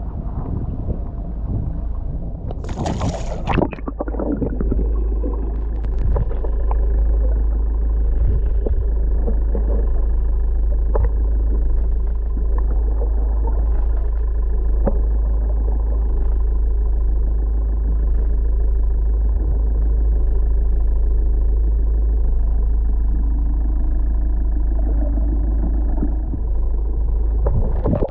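A splash about three seconds in as a tope shark goes back into the sea, then the muffled sound under the water: a steady low rumble and hum from the boat, with faint clicks.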